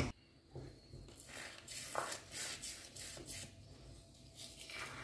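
Faint sizzle of a potato, onion and egg tortilla setting in a frying pan, with a few soft scrapes of a silicone spatula round its edge.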